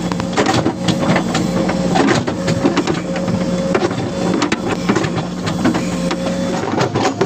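Backhoe loader's diesel engine running under hydraulic load as the backhoe digs soil: a steady engine hum and whine with constant mechanical clatter and knocking. The whine cuts out shortly before the end.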